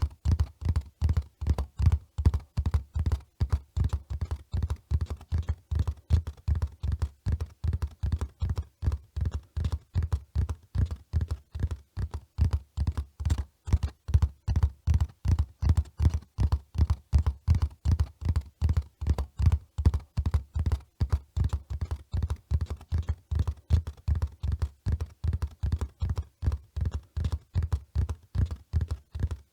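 Running horse's hoofbeats: a steady, fast rhythm of dull thuds, about three to four a second, evenly kept throughout.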